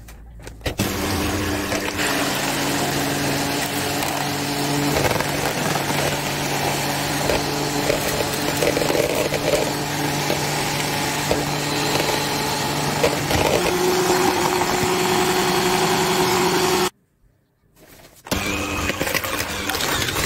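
Electric hand mixer running steadily, its beaters whipping cream with stabiliser in a plastic measuring jug. Near the end the motor stops and starts again a second or so later, now beating mascarpone.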